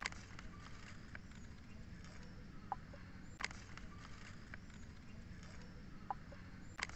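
Outdoor ambience: steady low background noise, with three sharp clicks spaced about three and a half seconds apart and two short chirps, each coming shortly before a click.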